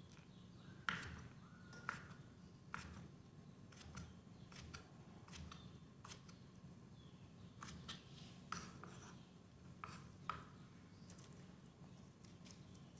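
Kitchen knife cutting pieces of cow skin on a wooden cutting board: a dozen or so faint, irregular knocks of the blade striking the board, the loudest about a second in, over a faint steady hum.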